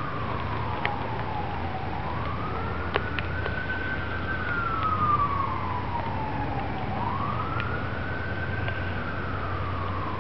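Siren wailing in slow sweeps, rising quickly and falling over about three seconds, with two full cycles, over a steady low hum.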